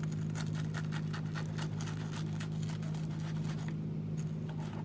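Steady low hum under a quick run of small, sharp clicks and scratches, which thins out and then picks up again briefly near the end.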